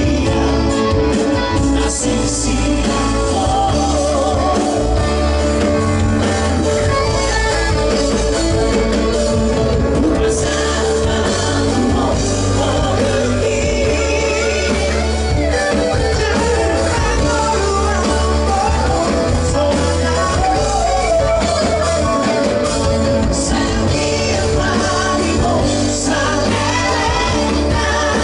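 A group of men singing live into handheld microphones over loud amplified band music with a heavy bass.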